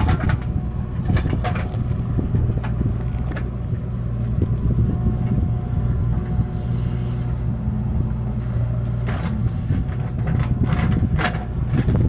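JCB 3DX backhoe loader's four-cylinder diesel engine running steadily under hydraulic load as the backhoe arm digs soil and swings the bucket, with scattered clanks and knocks, most of them near the start and again late on.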